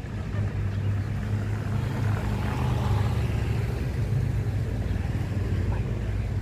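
Street traffic: a motor vehicle's engine humming steadily, swelling a little about two to three seconds in.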